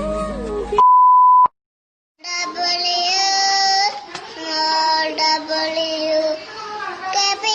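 A song cuts off into a short steady beep, then after a moment of silence a high-pitched, childlike voice sings with a wavering pitch.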